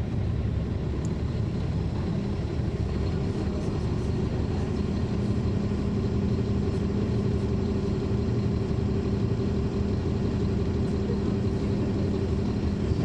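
Caterpillar C13 ACERT inline-six diesel of a 2009 NABI 40-SFW transit bus running at a steady, even pitch, heard from inside at the rear of the bus over the engine bay: a deep rumble with a constant hum.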